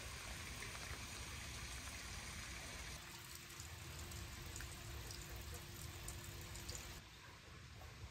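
Faint trickle of water falling from a bamboo spout into a stone purification basin. It is quieter for the last second.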